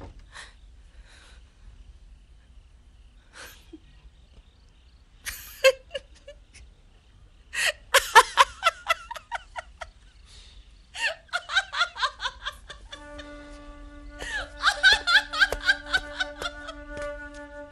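A woman laughing aloud in several bursts: soft at first, then loud laughter about halfway through, which recurs twice more. Background music with long held notes comes in about two-thirds of the way through.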